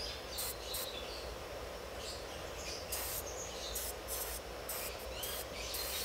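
Aerosol brake parts cleaner sprayed onto a brake caliper in a string of short hissing bursts, to clean brake dust off the pad mating surfaces.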